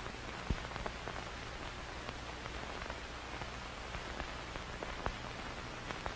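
Steady static hiss with scattered crackling clicks and a faint low hum underneath.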